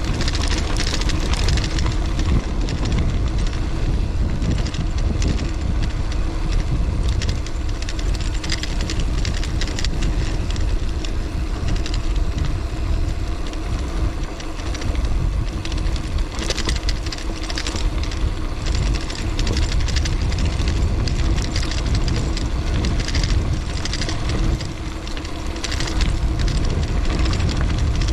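Gravel bike coasting down a dirt track: a steady rush of wind over the microphone with the rolling rumble of its 650b × 2.1 knobby tyres on packed dirt, and frequent short rattles and knocks from the bike over bumps and loose gravel.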